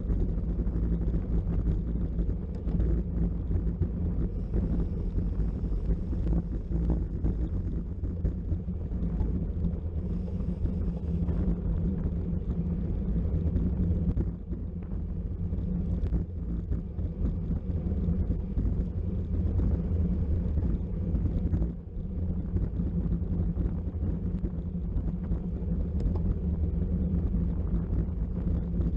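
Wind buffeting the microphone of a camera on a bicycle ridden at race speed: a steady low rumble that dips briefly twice.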